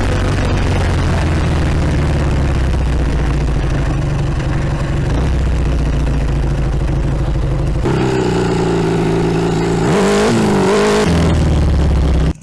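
Ural motorcycle's boxer-twin engine on PZ30 carburettors, running steadily, its pitch shifting about eight seconds in, then rising and falling once near the end.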